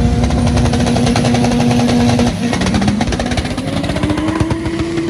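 A vehicle engine running, holding a steady note for about two seconds, then slowly climbing in pitch as it revs up.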